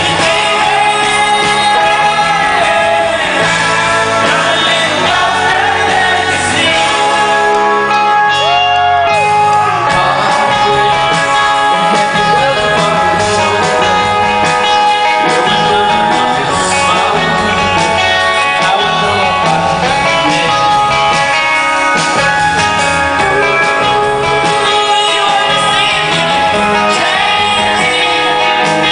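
Live rock band playing at full volume: a male lead singer over electric guitars and drums, amplified through the PA and echoing in a large hall.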